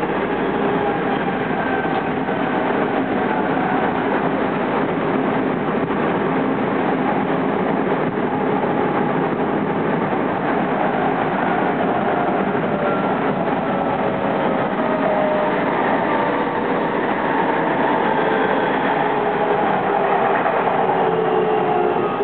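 Odakyu 2000 series electric train heard from inside motor car DeHa 2403: traction motors and wheels running at speed with a steady rumble and whine. In the last few seconds the motor whine falls in pitch as the train brakes into the station.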